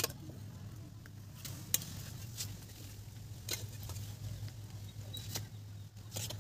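Scattered light clicks and taps, about half a dozen, from food and a metal cooking pot being handled while rice is served onto banana leaves on a concrete floor, over a low steady hum.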